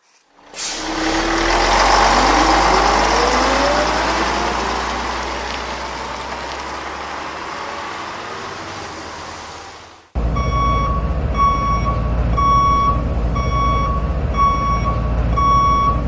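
Truck sound effects: a sudden rush of engine noise and hiss with a rising whine that fades over several seconds, then, about ten seconds in, a truck's reversing alarm beeping steadily, about one beep every three-quarters of a second, over a low engine rumble.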